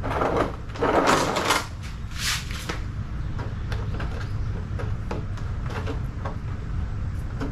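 Handling noise from the plastic jet sled being moved about: a few scraping, rustling knocks in the first few seconds, then only a steady low hum with faint small clicks.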